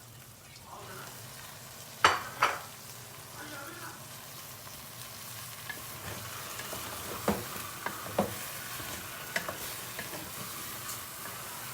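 Frozen cauliflower florets going into a pot of meat, onion and tomato paste frying: two loud knocks about two seconds in, then steady sizzling with a spoon clicking against the pot as it is stirred.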